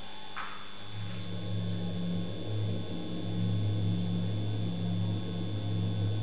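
Steady electrical hum with a thin high-pitched whine, typical of a night-vision security camera's microphone; a stronger low hum comes in about a second in and wavers, dropping out briefly every second or so.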